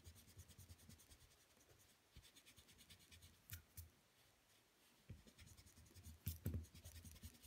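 Faint scratching of a mechanical pencil's lead on drawing paper: runs of quick, short sketching strokes laying in hair lines, with a few soft knocks of the hand and pencil against the drawing surface about three and a half seconds in and again near the end.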